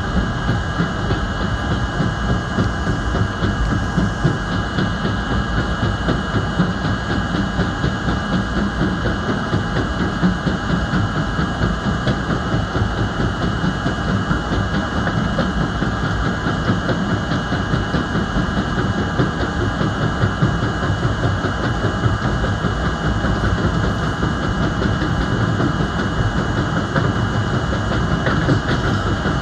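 R32 subway train running along the track, heard from inside the front car: a steady noise of wheels on rail, with a thin high tone held throughout.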